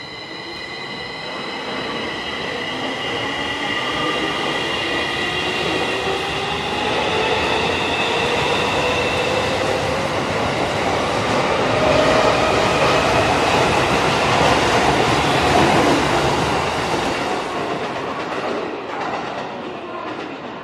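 A Tokyo Metro 16000 series electric train pulling out of a station and accelerating. The motors' whine rises steadily in pitch over the rumble of the wheels on the rails. The sound builds, is loudest a little past halfway, then fades as the last cars leave.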